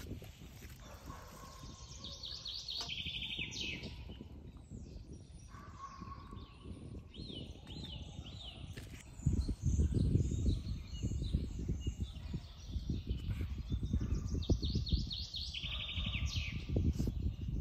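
Songbirds singing in short repeated phrases, with a loud, uneven low rumble coming in about halfway through and continuing under the birdsong.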